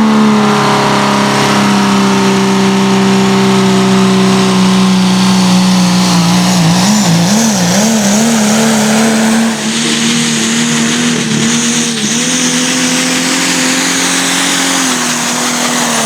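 Pulling tractor's engine at full throttle hauling the weight sled, its note held high and steady. The pitch wavers for a moment about seven seconds in, rises a little about twelve seconds in, and drops near the end.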